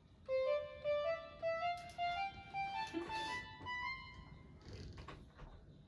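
Background music: a slow rising run of single instrument notes, climbing step by step for about four seconds, then fading out.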